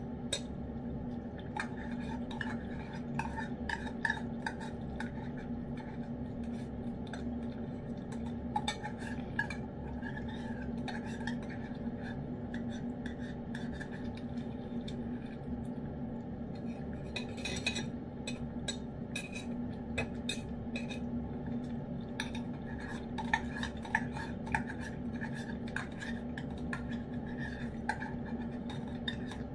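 Cat eating wet food from a ceramic bowl: a run of wet chewing and lapping with many small clicks of teeth and tongue against the dish, over a steady low hum.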